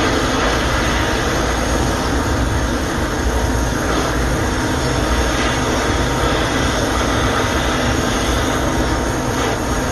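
Brazing torch flame burning steadily with an even rushing noise, held on the inlet joint of a new liquid-line filter drier to heat it for silver-solder brazing.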